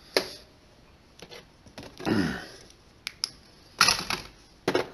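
Small metal parts and hand tools clicking and clattering on a worktable as they are handled, a series of separate knocks with a longer rattle about four seconds in.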